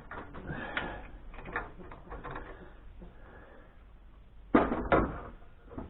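Small parts being handled on a workbench: light clicks and rustling, then two louder knocks or clatters about four and a half and five seconds in.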